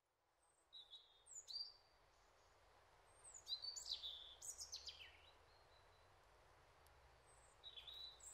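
Faint birds chirping over a low steady background hiss, in three scattered bursts of short whistled notes, several of them sliding downward.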